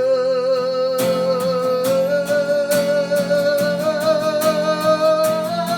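Live acoustic song: a singer holds one long note that slowly rises in pitch, over strummed acoustic guitar.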